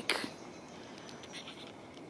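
The word "lake" ends, then quiet with faint scratchy rustling and a few light clicks about a second in.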